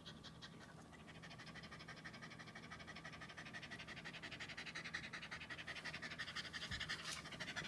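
Shiba Inu panting rapidly to cool down: quick, even, breathy pants, several a second, growing louder.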